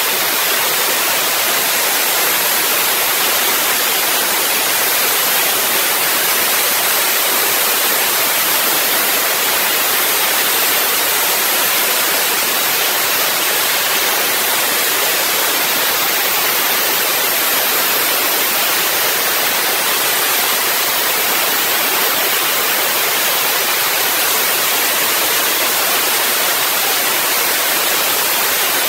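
Dry ice blaster running continuously: a loud, steady, mostly high-pitched hiss of compressed air and dry ice pellets jetting from the nozzle onto a conveyor chain and its carrier pins.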